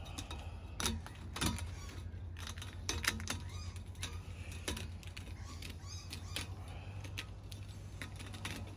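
Irregular light metallic clinks and scrapes as a thin liner gasket is worked down over a bank of four corroded cylinder liners. The corrosion on the liners makes it a tight, fiddly push.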